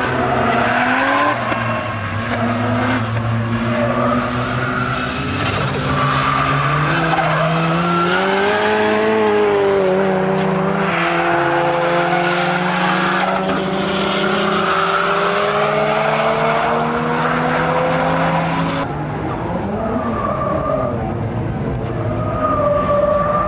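Track cars sliding through corners: engines revving high, their pitch rising and falling, with tyres squealing. About three-quarters of the way through the sound changes abruptly, and the engine noise continues at a lower level.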